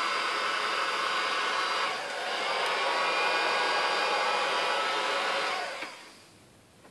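Electric heat gun blowing hot air steadily, dipping briefly about two seconds in, then winding down and stopping near the end. It is melting beeswax on the sides of a parade shoe.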